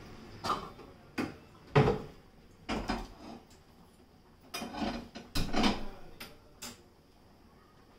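Irregular knocks and clinks of kitchen vessels and utensils being handled at a gas stove, about ten in all, the loudest a little under two seconds in.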